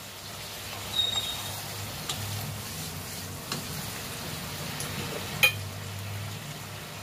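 Curry gravy cooking in a pan over a low steady hum, with a few sharp utensil clinks; the loudest comes about five and a half seconds in.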